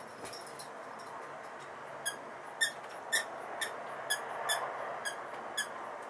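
African grey parrot giving a series of eight short, sharp beeps, about two a second, starting about two seconds in. The parrot is known to mimic beeps like an alarm.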